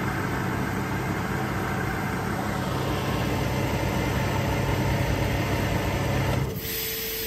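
Atlas Copco SCROLL Star 3.7 kW oil-free scroll compressor running steadily under load as it pumps up to pressure. About six and a half seconds in it cuts out suddenly on reaching its 8.5 bar shut-off pressure, leaving a fainter steady hum.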